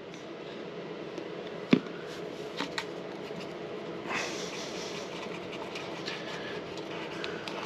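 A wooden stirring stick scraping and tapping around a small plastic cup while silica filler is mixed into epoxy to thicken it, over a steady background hum. A sharp tap about a second and a half in is the loudest sound, and a longer run of scraping starts about four seconds in.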